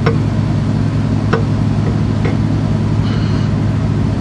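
Steady low hum with three light metal clicks, the first at the start, then about a second and a half and two seconds later, as a piston's connecting rod is guided down a cylinder liner of a Cummins ISX diesel onto its crankshaft.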